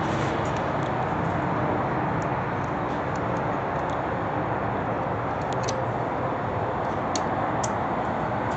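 Steady, even background noise of a building site, with a few light metallic clicks as a hex key is worked on a bolt of a bus bar joint.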